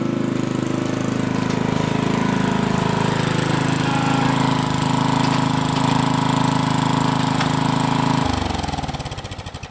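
Agway riding lawn tractor's engine running steadily. About eight seconds in it shuts off and winds down, the pulses slowing and fading.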